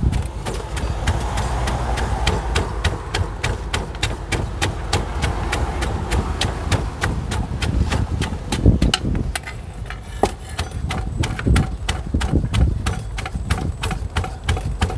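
Pestle pounding a spicy salad in a mortar: rapid, even strokes at about three to four a second over a steady low rumble.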